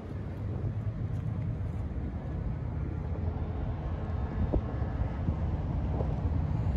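Steady low rumble of outdoor city background noise, like traffic or moving vehicles, with a faint click about four and a half seconds in.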